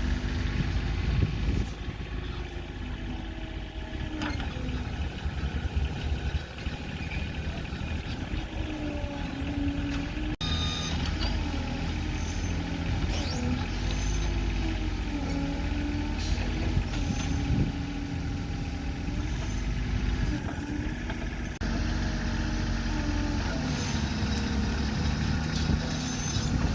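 Engine of a small bulldozer working, its pitch rising and falling as the load changes. The sound changes abruptly twice, about 10 and 21 seconds in.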